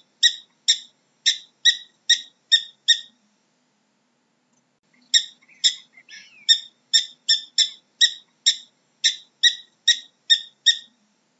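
Prairie dog giving its repeated alarm bark: a fast series of short, sharp, high chirps, about three a second. The chirps stop for about two seconds roughly three seconds in, then resume in a longer run.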